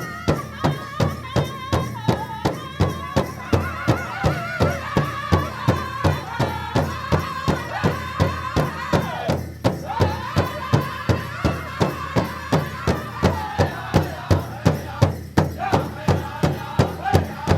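African festival music: a steady, even drumbeat with a melodic voice or voices singing over it.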